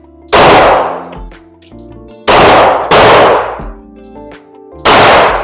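Pistol fired four times at an irregular pace, the second and third shots about half a second apart, each shot ringing out briefly. Background music plays underneath.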